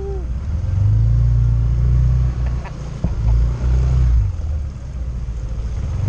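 Motorcycle riding on a rough, muddy dirt road: the engine runs under a heavy low rumble that swells and drops, louder through the middle seconds and easing toward the end.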